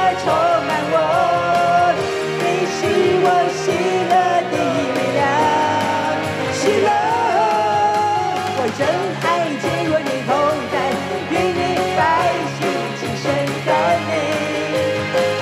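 Worship music: a woman singing into a microphone over a Roland electronic keyboard, her voice gliding between held notes.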